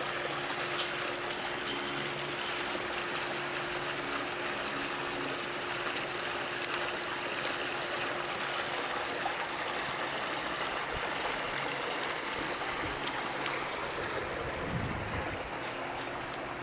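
Steady rush of running water with a faint steady hum underneath.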